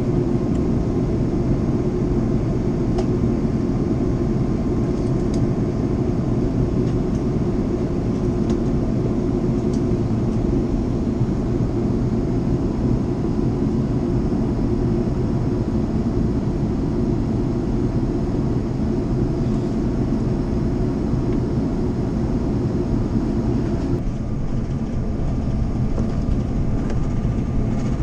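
Steady cabin noise of an Airbus A330-200 airliner in flight, heard inside the cabin: a deep, even rush of jet engines and airflow. Near the end the upper part of the rush drops a little.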